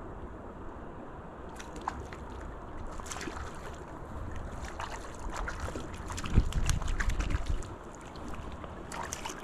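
Creek water flowing, with wind on the microphone. From about a second and a half in come irregular small splashes and clicks as a hooked brown trout thrashes at the surface. A stronger gust of wind buffets the microphone about two-thirds of the way through.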